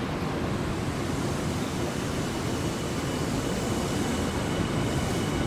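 Electric commuter train's running noise on a station platform, a steady rumble that grows slowly louder, with a faint steady whine joining about halfway through as the train draws nearer.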